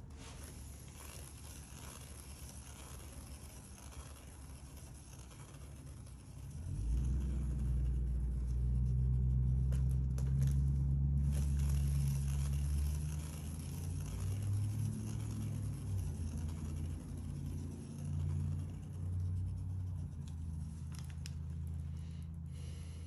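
A turntable spins a canvas with a wet acrylic pour on it, making a low rumble. The rumble starts about seven seconds in, is strongest for the next several seconds, then eases somewhat and wavers.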